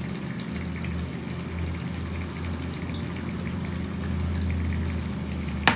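Eggplant and chickpea stew simmering in a frying pan on a gas stove: a steady, watery bubbling hiss over a low hum, with one sharp click at the very end.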